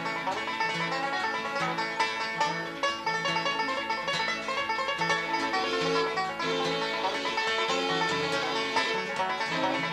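Background music: a lively banjo-led instrumental in a bluegrass style, with fast plucked notes over a steady bass line.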